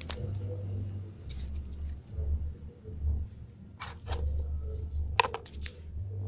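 Ginger cat crunching dry kibble: three bursts of crisp crunching clicks, about a second apart, over a low rumble.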